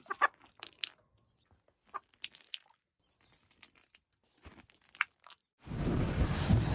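Hens pecking at beer-soaked dirt: scattered sharp pecks and crunches. About five and a half seconds in, a loud, steady, deep rumble of a fire sound effect begins.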